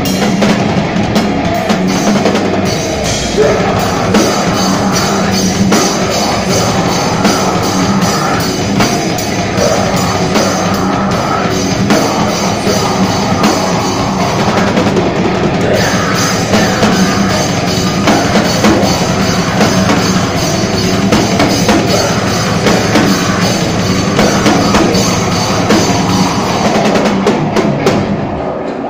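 Live heavy metal band playing loud, with the drum kit close and up front over distorted guitars and bass.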